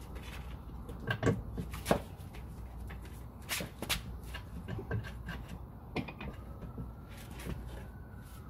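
Irregular knocks and rubbing as the lower unit of a Mercury Force 120 hp outboard is pushed up against its driveshaft housing and worked into place, while the driveshaft splines are being lined up. There are several sharp knocks, loudest about a second in and again about three and a half seconds in.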